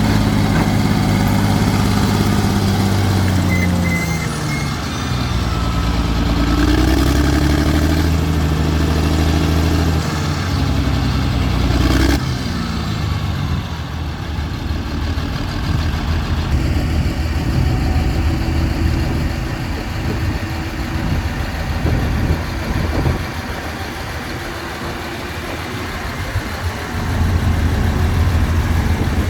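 Heavy earthmoving machine's diesel engine working, its pitch rising and falling under load for the first dozen seconds. A sharp knock comes next, then rougher running with scattered knocks, and a steady engine note returns near the end.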